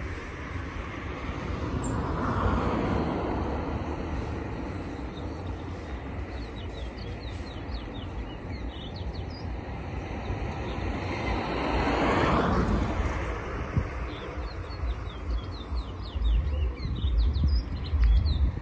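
Caged towa-towa finches singing in runs of short, quick chirps, mostly in the middle and near the end. Two passing vehicles swell up and fade, about two and twelve seconds in, and are the loudest sounds. Wind rumbles on the microphone near the end.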